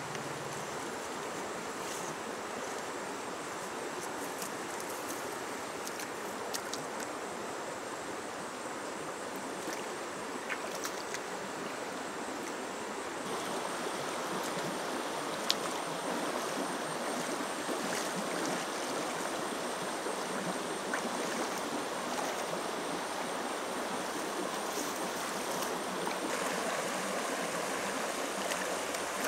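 Shallow, stony river running steadily over rocks. About halfway through it becomes a little louder and closer, with light splashes from someone wading.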